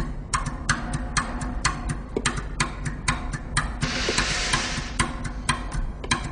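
Sparse rhythmic music intro: crisp clicks, about three to four a second, over a low steady hum, with a short burst of hiss about four seconds in.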